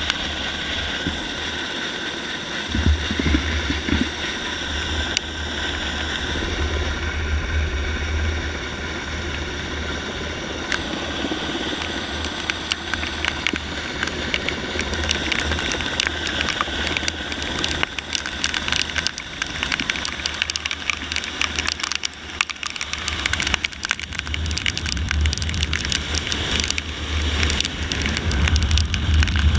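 Helicopter overhead with a steady high turbine whine and rotor noise, heard from the end of a SPIES rope beneath it. Wind buffets the microphone in low rumbling gusts, easing off for a while in the middle.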